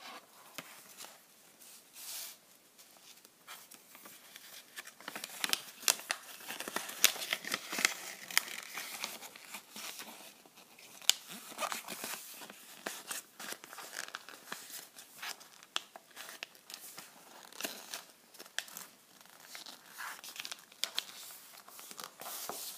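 Origami paper being handled and folded by hand: irregular crinkling and rustling with sharp crackles as the sheet is turned over and creased, busiest from about five seconds in.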